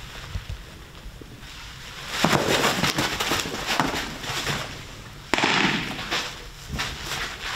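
Two sharp bangs about three seconds apart, each trailing off in a second or two of noisy rush with smaller pops inside it.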